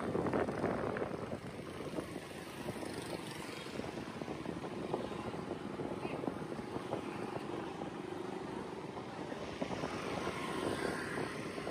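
Steady vehicle traffic noise, a continuous hum with small clicks and knocks, a little louder at the start and again near the end.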